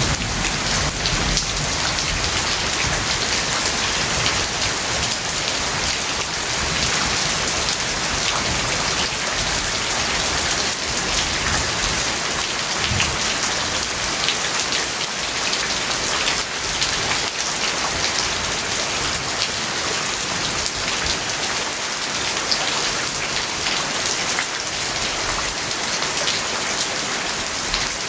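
Steady rain falling, with many individual drops striking close by as short ticks over an even hiss.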